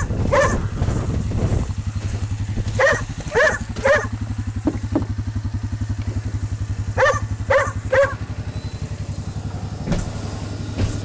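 A vehicle engine runs steadily at a low, fast-pulsing idle. Over it a dog barks in quick sets of about three, three times.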